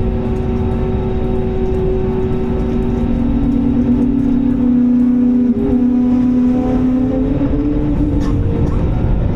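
Airbus A320 cabin noise during the climb: a steady low roar of the jet engines and airflow with a droning engine hum, whose pitch rises a little about midway.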